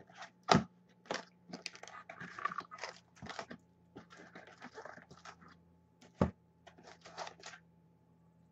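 Plastic wrap crinkling and tearing, with sharp clicks and knocks of cardboard, as a Topps Chrome football card box is unwrapped and opened by hand; the loudest knocks come about half a second in and again a little after six seconds.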